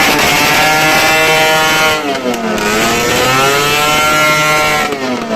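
An engine revving: its pitch sinks about two seconds in, then climbs and holds before dropping near the end.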